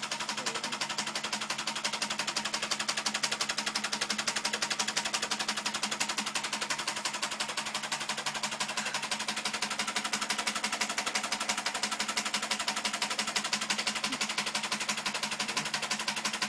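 Homemade 12-volt four-piston solenoid engine with rare-earth magnet pistons running at idle: a rapid, even clatter of pistons, tappets and switching contacts, with a steady hum underneath from its small motor-generator.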